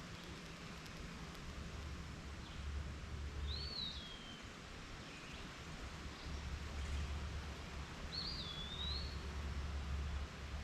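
A bird calls twice, about five seconds apart: each call is a short whistled swoop that rises and then falls, over a steady outdoor hiss and low rumbling swells.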